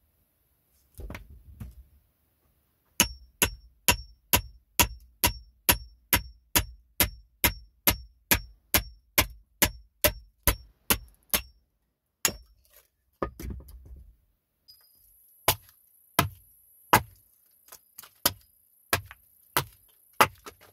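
A hatchet struck repeatedly on its back to drive the blade through a knot in a log, metal ringing at each blow. First a fast, even run of strikes about three a second, then after a short pause a slower series. The blade holds up with no burrs or dents, though its hardening was improvised.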